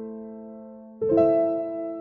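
Soft, slow electric-piano music: a held chord fading away, then a new chord struck about a second in that slowly decays.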